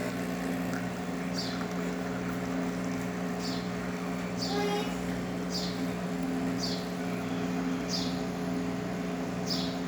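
Pod espresso machine's pump humming steadily while it brews a shot of espresso. Short high chirps come every second or two above the hum.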